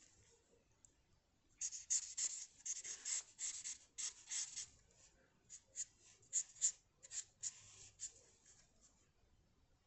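Quick strokes of a drawing tool scratching across paper, starting about a second and a half in and stopping near the end.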